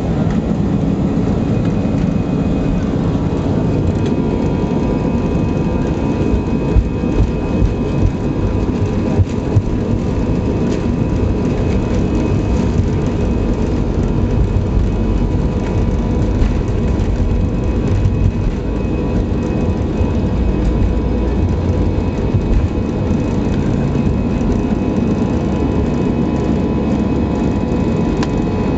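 Airbus A319 on its takeoff roll, heard inside the cabin at a window seat: the engines at takeoff power make a loud, steady deep rumble with a couple of thin steady whining tones over it. A few sharper bumps come about seven to ten seconds in.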